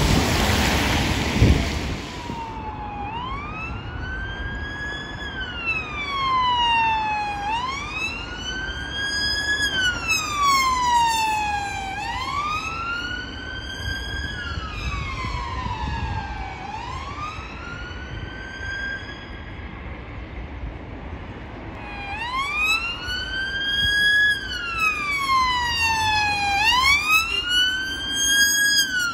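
For the first two seconds, a loud rush of rain and wind. Then a UK police car's siren on wail, rising and falling smoothly about every two and a half seconds as the car approaches.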